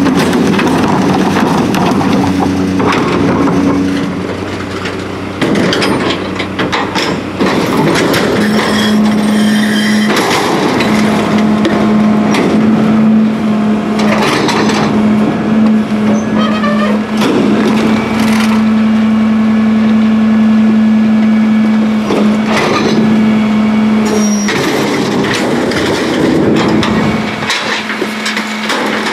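McNeilus rear-load garbage truck dumping containers: the cart tipper and then the dumpster lift bang and clatter as bins are tipped and shaken out into the hopper. The truck's engine runs under hydraulic load, with a steady drone through much of the middle of the lift.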